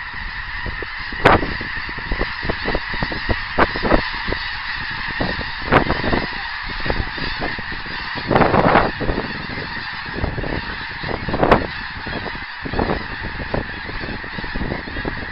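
A large flock of snow geese calling in flight: a dense, unbroken chorus of honking, with louder single calls from nearer birds standing out every few seconds.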